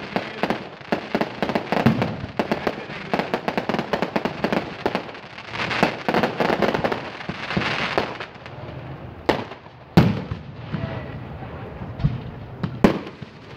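Fireworks crackling in a dense run of rapid pops for about eight seconds, then a few separate loud bangs.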